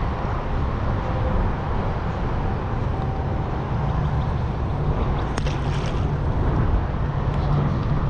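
Wind buffeting the microphone: a steady, heavy low rumble. A few faint clicks come about five and a half seconds in.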